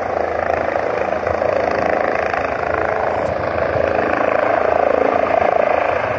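Helicopter rotor and engine running close by, a steady dense noise that grows slightly louder.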